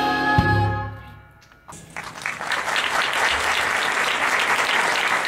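A song's final held chord dies away, then audience applause breaks out about two seconds in and keeps going steadily.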